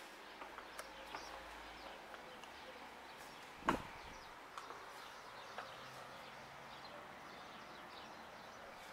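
Faint outdoor ambience with a few faint bird chirps and light clicks. One sharp knock comes a little under halfway through and is the loudest sound.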